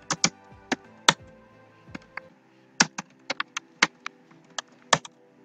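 Keystrokes on a computer keyboard: about fifteen sharp, irregular clicks as short shell commands are typed into a terminal.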